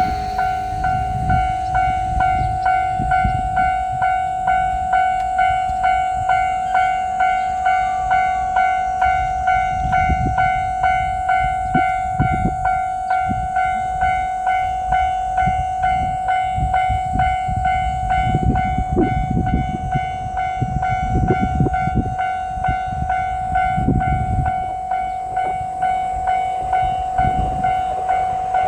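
Japanese railway crossing alarm ringing its repeated electronic "kan-kan" bell, about one and a half strokes a second over a steady ringing tone. The low rumble and thumps of a passing diesel limited-express train come and go under it in the middle.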